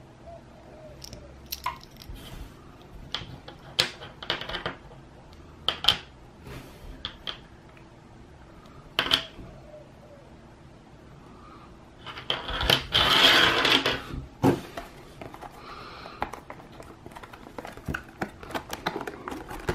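Small hard plastic toy crystals clicking and tapping against each other and the fingers, a handful of separate sharp clicks. About two-thirds through comes a louder stretch of rustling and crinkling as packaging is handled, then quick small clicks and rattles as a card-backed plastic blister pack is turned in the hands.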